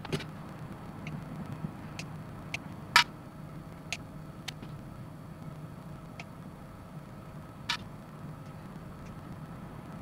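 Hobby side cutters snipping grey plastic model-kit parts off the sprue and trimming the leftover nubs: sharp single clicks every second or so, the loudest about three seconds in and another near eight seconds, over a low steady hum.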